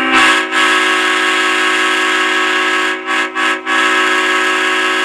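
Restored 1950s Leslie Supertyfon bronze Tabby train horn blowing a loud steady chord. It is one long blast that dips briefly about half a second in and stutters twice about three seconds in before sounding steadily again.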